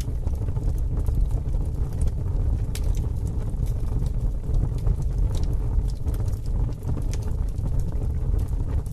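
Low, steady rumbling noise with scattered crackles and clicks.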